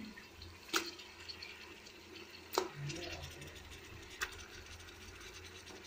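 Raw chicken pieces being added to a pot of onions, mint and spices frying in oil, with a faint sizzle and three short, sharp knocks against the pot.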